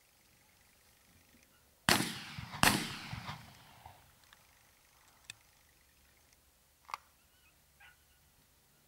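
Two gunshots in quick succession, less than a second apart, each trailing off in an echo. A couple of faint clicks follow.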